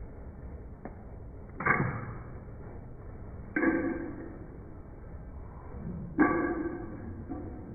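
Three sudden hits, each ringing briefly as it dies away, about one and a half, three and a half and six seconds in; the last is the loudest.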